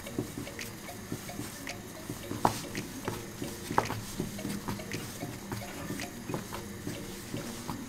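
Hands kneading soft dough on a floured wooden board: irregular squishing, pressing and small taps, with two sharper knocks about two and a half and four seconds in.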